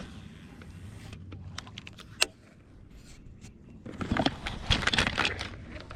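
Scattered light clicks, one sharp click a little past two seconds, then a dense run of clicking and rattling from about four to five seconds in: small hard objects being handled.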